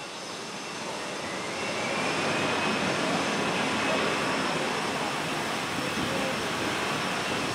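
Airbus A320 jet engines at taxi power: a steady rush of engine noise with a faint high whine, growing louder over the first two seconds as the airliner taxis past.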